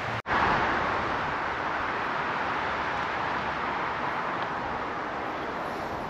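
Steady rushing noise of road traffic on a busy main road, continuous tyre and engine noise. It drops out for an instant just after the start and comes back a little louder.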